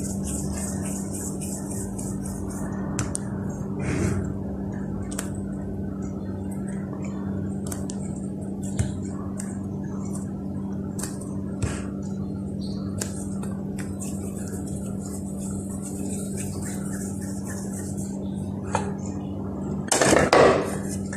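Faint handling noises of soft dough being pinched off and rolled into balls in a glass bowl, with occasional light taps against the glass, over a steady background hum. Near the end there is a short, louder clatter.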